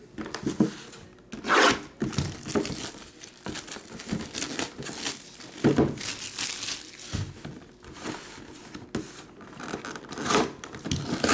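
Cardboard box of Tristar Autographed Mini Helmets being handled and its front torn open: irregular rustling, scraping and ripping of card and paper, with the loudest rips about a second and a half in, around six seconds in and near the end.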